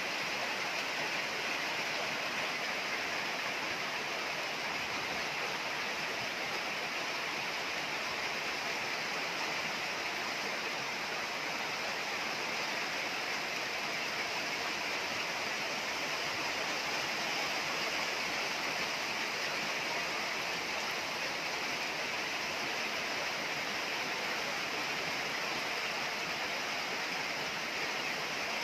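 Heavy rain pouring down in a storm, a steady unbroken hiss.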